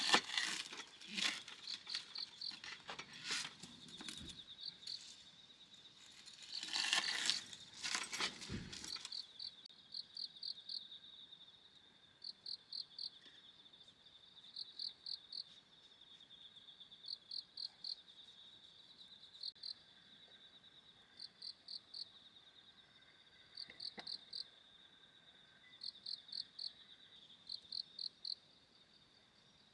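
Crickets chirping: short pulsed chirps in groups of about four, repeating every second or two over a steady high trill. During the first several seconds there is also loud crinkling and rustling close by.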